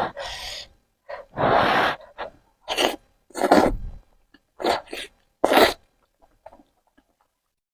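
A person slurping spicy instant noodles: six short, loud slurps, each under a second, with a pause before a few faint mouth clicks near the end.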